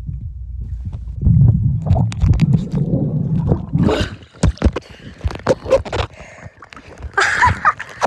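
Muffled underwater rumble and bubbling around a camera held under pool water. About halfway through, the camera breaks the surface and water crackles and splashes on the microphone in sharp bursts, with a short vocal sound near the end.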